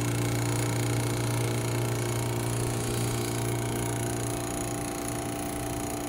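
Refrigeration vacuum pump running with a steady, even hum while it pulls a vacuum on the suction line and compressor sump.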